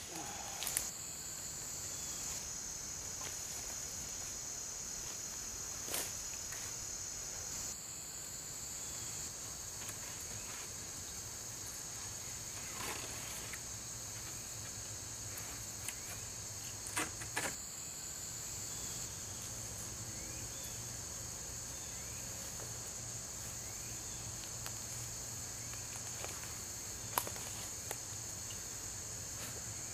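Steady high-pitched insect chorus, broken by a few short sharp snaps and knocks as sticks are handled.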